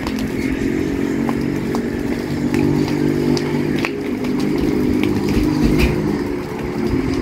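An engine running steadily, with scattered sharp pops and crackles of burning dry brush over it.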